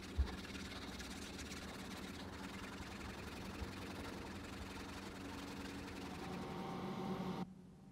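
Hand brush scrubbing a rusty steel knife blade, a steady scratchy rasp over a faint low hum, with a low bump right at the start. It stops abruptly near the end.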